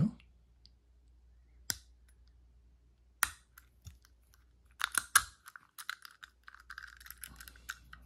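Small metal clicks from lock picks and a tension tool being worked in and out of a Master combination lock's keyway: single clicks about two and three seconds in, a quick cluster of clicks around five seconds, then a faint scrape for about two seconds.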